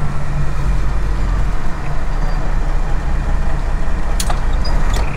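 Inside the cab of a Freightliner Classic semi truck at highway speed: a steady, loud low drone of the diesel engine and road noise. Two short clicks sound near the end.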